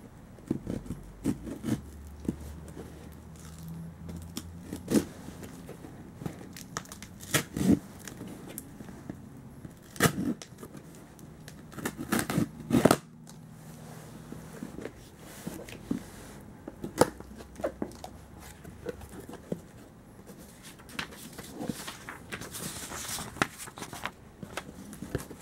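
Clear packing tape being picked at and torn off a cardboard box, and its flaps pulled open: irregular crackles, taps and tearing, loudest about halfway through.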